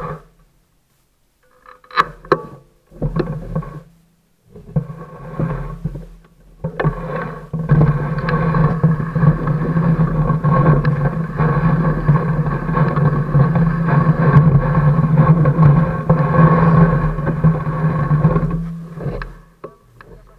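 Fat bike rolling over snow, its riding noise picked up by a camera mounted beside the front tyre: a few short bursts in the first seconds, then continuous loud rolling and rattling from about eight seconds in, dying away near the end as the bike stops.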